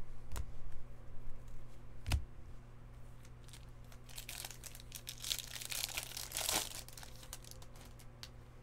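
Two sharp knocks in the first couple of seconds, then a few seconds of crinkling and tearing, typical of a foil baseball-card pack wrapper being torn open and handled.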